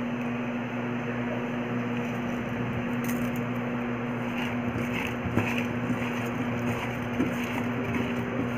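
Soft squishing and faint clicks of a hand tossing jamun fruit with salt and sugar in a steel bowl, over a steady background hum and hiss.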